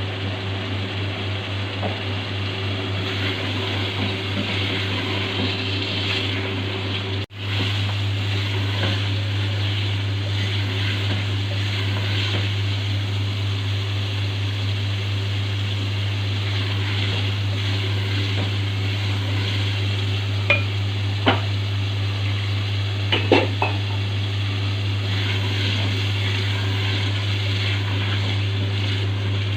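Chicken and arvi (taro root) sizzling in oil in a cooking pot over a steady low hum. The sound cuts out for an instant about seven seconds in, and a few short clinks of a utensil on the pot come a little past the middle.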